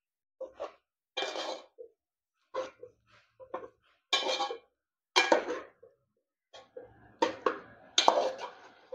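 A spoon scraping and clanking against a metal pot as pork is stirred into a thick masala, in a series of short strokes with brief pauses between them.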